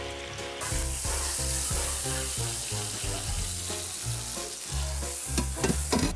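Food sizzling in a hot pan, the hiss starting suddenly about half a second in, over background music with a low bass line.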